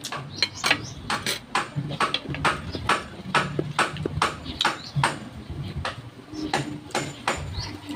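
Close-up eating sounds: wet lip smacks and chewing clicks, about two or three a second, from someone eating rice and stew by spoon and by hand.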